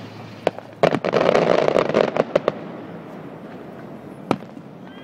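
Aerial fireworks shells bursting: a sharp bang about half a second in and another just under a second in, then a dense crackling of many small reports lasting over a second, and one more single bang near the end.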